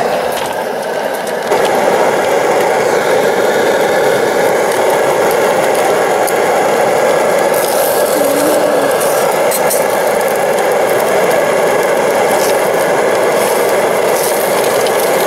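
MSR Dragonfly liquid-fuel camp stove burning at full flame, a loud, steady, rough rushing sound that steps up about a second and a half in.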